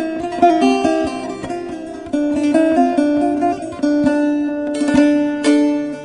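Instrumental break of a Turkish folk song, a melody of quick plucked-string notes without singing.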